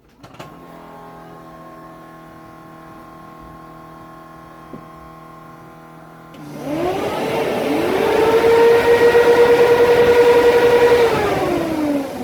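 A click, then a faint steady hum as the ignition is switched on. Twin Derale 4000 cfm electric radiator puller fans then spin up with a rising whine and rush of air, run steadily for about four seconds, and wind down near the end, run through the new fan controller's test button. Both fans working shows the old controller was the fault.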